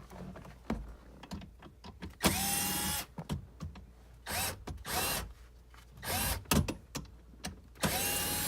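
Cordless drill/driver running in about five short bursts, each whine spinning up quickly and then holding steady, backing out the 7 mm screws that hold the OBD diagnostic port.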